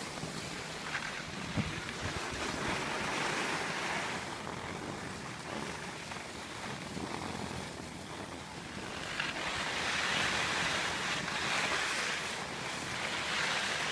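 Skis sliding over packed snow: a steady rushing hiss that swells twice, loudest in the second half, with a light knock about one and a half seconds in.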